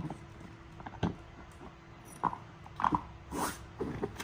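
Dog gnawing on a hard yak cheese chew: irregular clicks and knocks of teeth on the chew.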